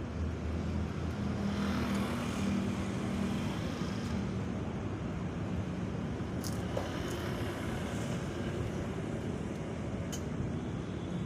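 Street traffic: a steady low rumble, with a vehicle engine swelling and fading as it passes over the first few seconds. Two short clicks come about six and a half and ten seconds in.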